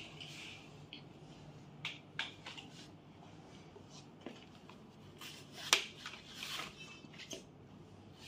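Scattered clicks and taps with spells of fabric rustling as a bed safety rail's poles, plastic joints and fabric panel are handled; the sharpest click comes a little before six seconds in.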